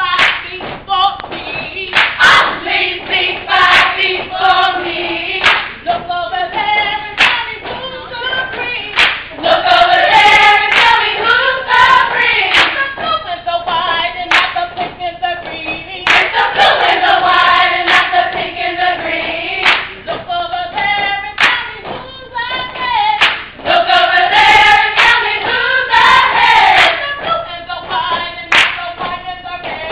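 A group of voices singing together, with hand claps.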